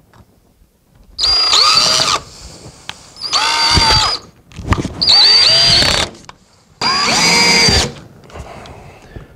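Cordless drill/driver driving screws into an MDF cabinet panel, in four bursts of about a second each, the motor whine rising as each one starts.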